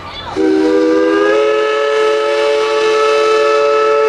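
Steam whistle of a 1925 narrow gauge steam locomotive blowing one long blast, a chord of several notes. It starts about half a second in and is still sounding at the end.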